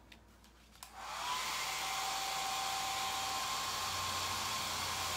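Hand-held hair dryer switched on with a click about a second in, its airflow rising to a steady blowing hiss with a faint whine. It is drying the chalk paste on the board.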